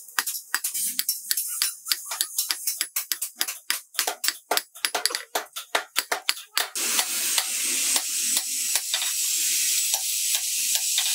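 Hand hammer striking hot steel on an anvil in quick blows, about four or five a second, while an axe head is forged. About two thirds of the way in, a steady hiss begins and continues to the end, with lighter strikes under it.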